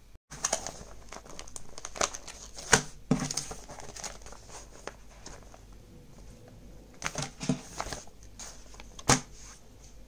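Plastic vacuum-sealer bag holding a smashed egg and its shell fragments, crinkling and crackling as it is handled, with a few sharper, louder crackles standing out.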